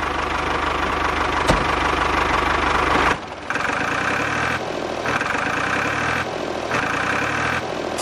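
Steady chugging engine-like running sound of a miniature tractor, dipping briefly a little after three seconds. Afterwards a higher rattle switches on and off about once a second.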